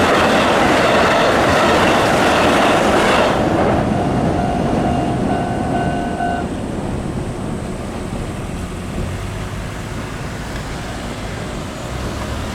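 Sanyo Electric Railway train passing over a level crossing, loud for the first three seconds or so with clickety-clack from the wheels, then falling away to a low rumble. A steady ringing tone from the level-crossing warning stops abruptly about six seconds in, after the train has gone.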